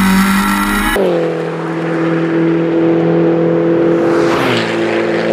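Race car engine running at high revs with a steady pitch. The pitch steps down once about four seconds in, like a gear change, as a swell of noise builds with the car passing.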